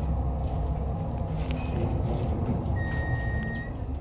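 Schindler hydraulic elevator car travelling down, a steady low rumble heard from inside the car. About three seconds in, a single high electronic beep sounds for about a second, and the rumble eases off right at the end.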